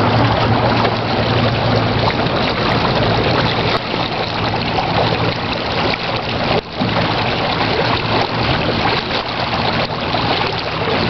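Small boat's motor running steadily at low trolling speed, a low hum under the rush and splash of water along the hull.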